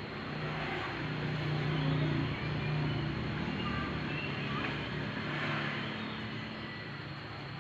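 An engine's steady low hum that swells over the first two seconds or so and then slowly fades, with a few faint high chirps over it.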